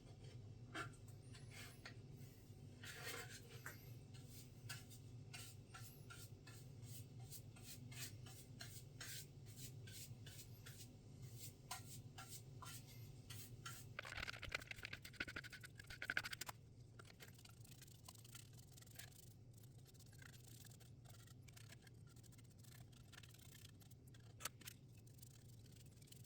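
Faint scratching and many small clicks of hand work on the birdhouse parts, over a steady low hum. A little past the middle the scraping grows louder for about two seconds.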